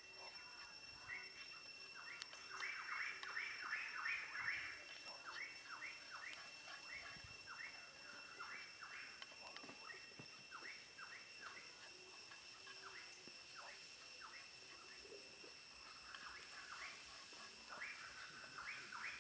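Corn kernels stir-fried with wooden chopsticks in a metal pan over a wood fire: faint, many short scratchy sizzling and scraping sounds, busiest a few seconds in.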